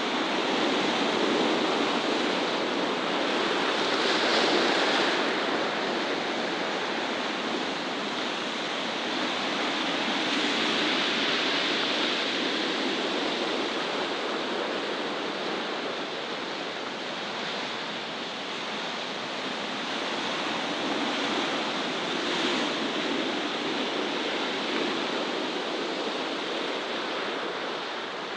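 Sea surf breaking and washing over rocks: a steady rushing hiss that swells and eases every few seconds.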